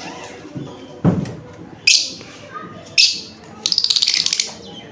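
Lovebirds calling: sharp, shrill chirps roughly once a second, then a rapid chattering run of about a dozen quick notes near the end.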